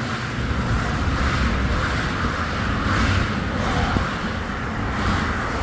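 Passing highway traffic: a steady rush of tyre and engine noise from vehicles going by on the road.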